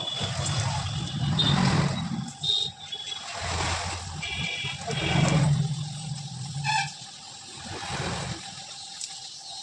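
Road traffic: several motor vehicles passing one after another, with a few short high-pitched toots of a horn or beeper.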